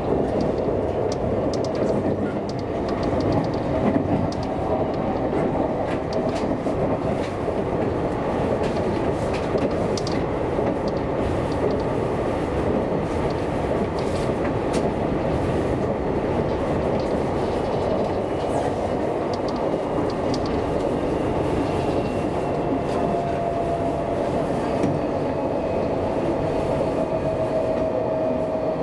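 Seibu Railway electric commuter train running along the line: steady rumble of wheels on rail with scattered clicks over the track. A steady whine is heard briefly at the start and again near the end.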